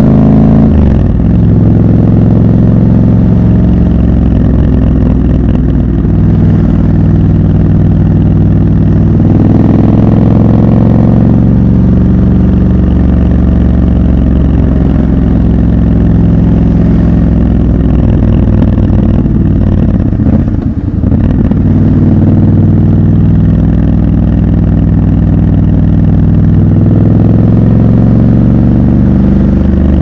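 Triumph Scrambler 1200 XC's 1200 cc parallel-twin engine running under way, with revs rising about ten seconds in and again near the end, and a brief drop in level about twenty seconds in.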